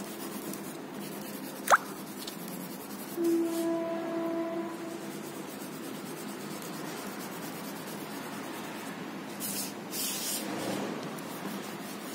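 Fingers rubbing and blending pastel shading on paper, a soft, continuous scratchy rubbing with a few stronger strokes near the end. There is a brief sharp chirp about two seconds in, and a steady held tone for about two seconds starting a little after three seconds in.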